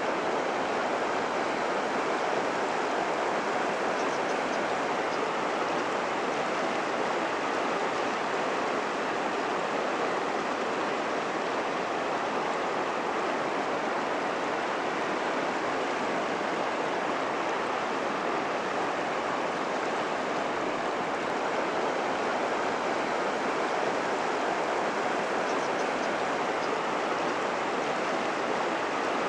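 Steady rush of the Naka River's flowing water.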